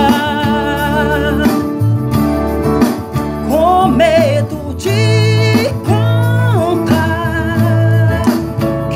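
A man singing a Portuguese-language romantic song, holding long notes with vibrato and sliding between pitches, over guitar accompaniment with a steady low bass.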